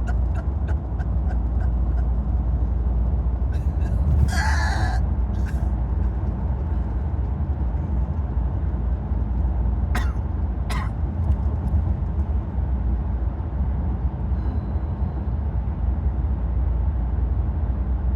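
A woman hiccupping inside a moving car: four short, sudden hiccups, two about four to six seconds in and two more about ten to eleven seconds in, over the car's steady low road rumble.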